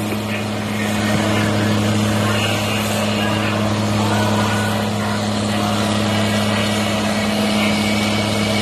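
Tractor diesel engines working hard at a steady, unchanging drone as a John Deere 4440, with its turbocharged six-cylinder diesel, drags a weighted pulling sled under heavy load.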